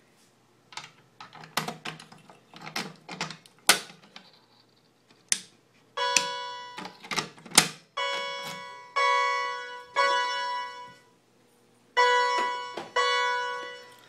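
Clicks and clunks from handling the fire alarm pull station, its key and its pull handle. Then the fire alarm sounds during the audible walk test as a chime: ringing tones that start sharply and die away, about a second apart in groups of two or three with short pauses between the groups.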